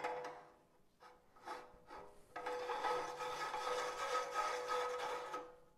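A few short scrapes, then a steady rasping scrape lasting about three seconds with a faint hum in it, which stops near the end.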